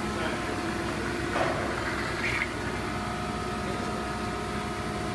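Abrasive flow machine running with a steady hum and several constant tones as it forces abrasive putty through a stainless exhaust header. A brief hiss comes about a second and a half in.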